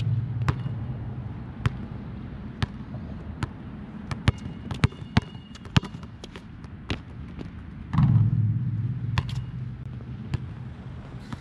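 Nike Jordan Hyper Grip 4P basketball bouncing on a court, with sharp, irregular thuds. Twice, at the start and again about eight seconds in, a louder hit is followed by a low hum that fades over about three seconds.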